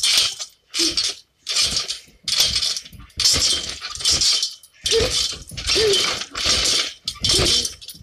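Garden trampoline being jumped on: a burst of metallic jingle and creak from the springs and frame with every bounce, a bit more than one a second, some bounces with a short squeak.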